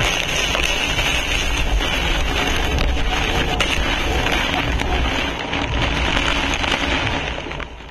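Hurricane wind and driving rain blowing hard past the microphone, a dense steady rush with a few scattered faint ticks; it fades out at the very end.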